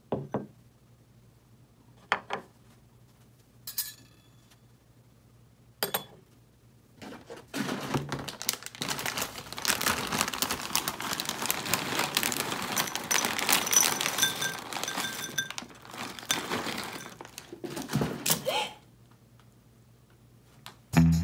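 A ceramic bowl set down on a wooden tabletop with a knock, then a few separate knocks and clinks as a metal spoon and its rest are laid beside it. From about seven seconds in, dry square cereal pieces pour into the bowl in a long dense rattle for about eleven seconds, thinning out before stopping.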